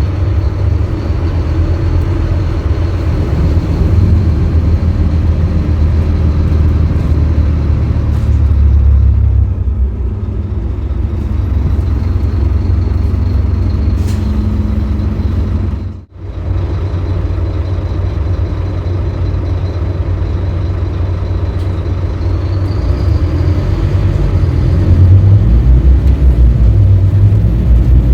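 A 2018 Scania K310UB city bus's five-cylinder diesel engine running as the bus drives, a steady deep rumble with a faint high whine above it. The sound drops out sharply for a moment about halfway through, and the engine grows louder over the last few seconds.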